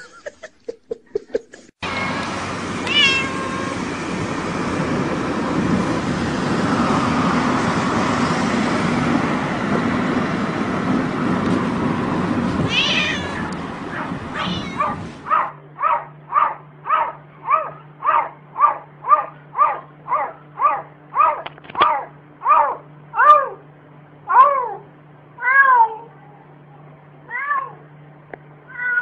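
A cat meowing over and over in short meows, about two a second, through the second half. Before that there is a stretch of steady noise with a couple of single meows.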